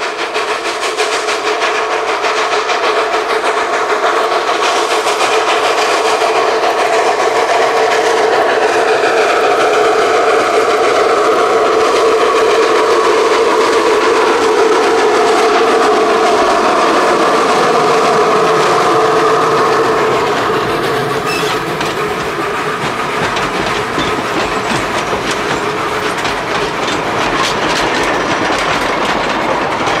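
Narrow-gauge steam locomotive Cozia-1 passing close by with rapid exhaust chuffs, growing louder as it approaches and falling in pitch as it goes past about halfway through. The train carries on rolling by a little quieter after it.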